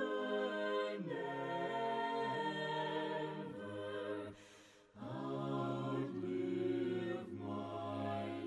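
A cappella singing in several-part harmony, slow with long held notes and a brief pause about four seconds in.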